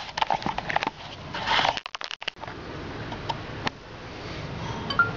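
Scattered small clicks and rustling from hands handling tools and parts, with a brief hiss about a second and a half in.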